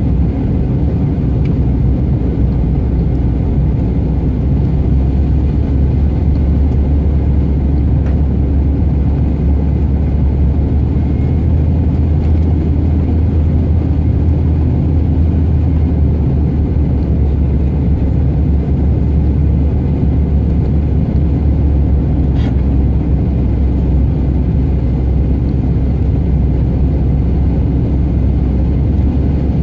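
Steady cabin noise inside a Bombardier CRJ 700 airliner descending on approach: a deep, even rumble of its two rear-mounted General Electric CF34 turbofans and the airflow past the fuselage. One brief click sounds about three quarters of the way through.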